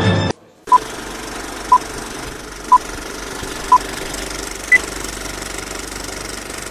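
Old-film countdown sound effect: a steady film-projector rattle and crackle with four short beeps one second apart, then a fifth, higher beep.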